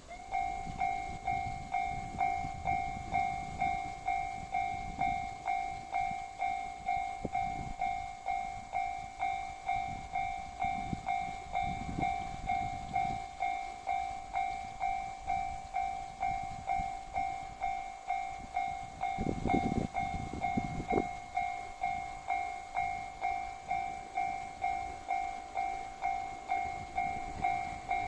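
Japanese level-crossing alarm ringing in its steady two-tone electronic 'kan-kan', a little under two rings a second. It starts abruptly and signals an approaching train. Under it is a low rumble that swells briefly about two-thirds of the way through.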